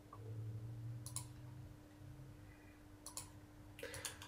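Faint computer mouse clicks: a single click, then a couple more, and a quick cluster near the end, over a low steady hum.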